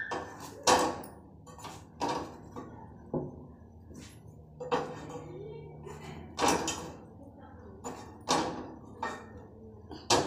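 Metal spatula knocking and scraping on a flat griddle pan (tawa) as a bajra roti is pressed and turned: short sharp knocks at irregular intervals, about one a second.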